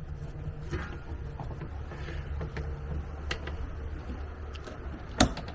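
Light scattered clicks and taps of a screwdriver and hands working the wiring of an RV converter panel, with one sharper knock near the end, over a low steady hum.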